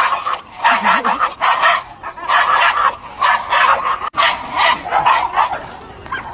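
A dog barking over and over in quick, loud bursts, dying down about five and a half seconds in.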